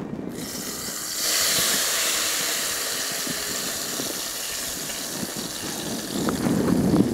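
Tamarind water poured into a pan of hot oil and fried raisins, sizzling and hissing as it hits the oil. The hiss swells about a second in, slowly dies down, and a few crackles come near the end.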